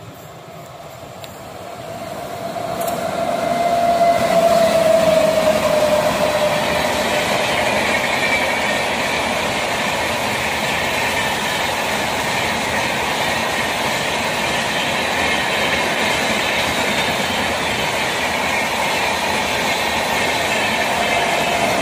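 Passenger train hauled by an Indian Railways WAP7 electric locomotive passing at speed. The noise swells over the first few seconds as the locomotive approaches, with a hum that falls slightly in pitch as it goes by. It then settles into a steady rumble and clatter of the coaches' wheels over the rail joints.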